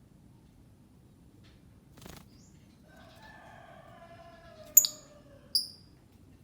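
Lovebird calling: a lower drawn-out call, then two loud, sharp, high chirps less than a second apart. A brief click comes about two seconds in.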